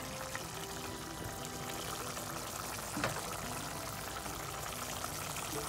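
Dried-fish curry simmering in a pot on a gas stove: a steady bubbling hiss, with one light knock about three seconds in.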